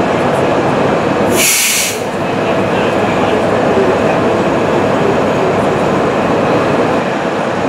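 Steady street-traffic rumble and crowd bustle heard from the open top deck of a tour bus. A short, loud hiss comes about one and a half seconds in.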